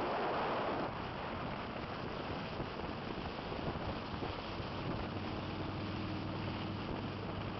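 Wind buffeting the microphone on a motorcycle moving at road speed, over the drone of motorcycle engines. A steadier low engine hum stands out from about five seconds in.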